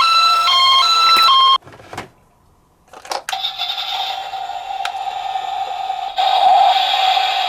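A toy ambulance's electronic two-tone hi-lo siren alternating about every half second, cutting off about one and a half seconds in. Two sharp knocks follow. Then a steady electronic ringing tone starts about three seconds in and gets louder near the end.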